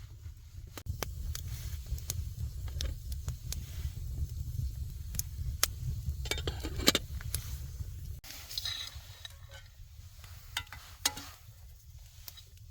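Irregular sharp crackles and clicks, several close together at times and thinning out toward the end, over a steady low rumble.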